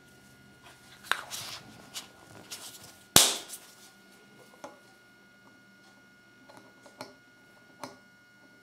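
Small plastic Kinder Surprise Minion toy figure being handled and set down: a scatter of light plastic clicks and taps, with one sharp knock a little over three seconds in and a few lighter taps near the end.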